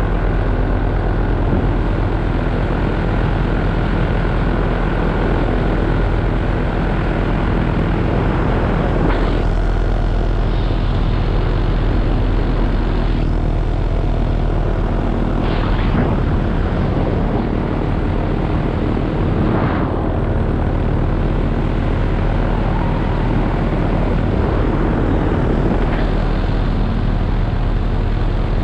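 Paramotor engine and propeller running steadily in flight, with a few brief rushes of wind noise.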